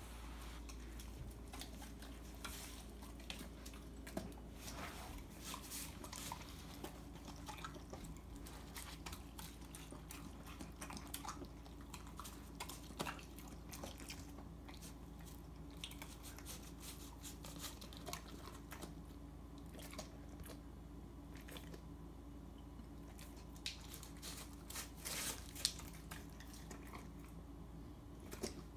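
Belgian Malinois eating chicken from a plate: faint wet chewing and smacking with irregular clicks, a few louder near the end.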